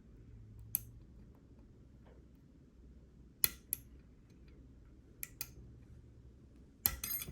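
Sharp metallic clicks of a half-diamond lock pick working the pins of a Schlage Everest lock cylinder under tension, a few single clicks spaced out, then a quick run of clicks near the end.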